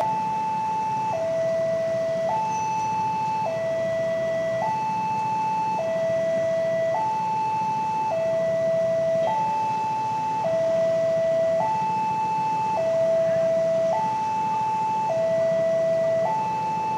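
Railway level-crossing warning alarm sounding a steady two-tone hi-lo signal, each tone held about a second. The signal warns that a train is approaching the crossing.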